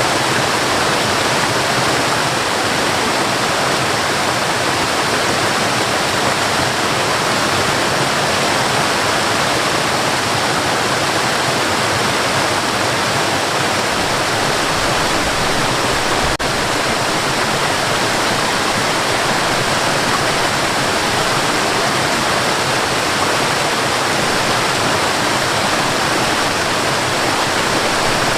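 Waterfall: a steady, loud rush of falling water, even and unbroken.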